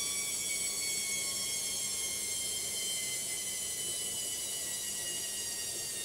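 Logik front-loading washing machine on its spin cycle, the drum turning fast with a steady high-pitched motor whine that falls slightly in pitch.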